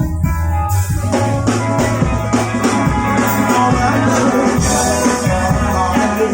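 Rock band playing live, an instrumental passage with drum kit and electric guitar; the drums and cymbals come in fuller a little under a second in.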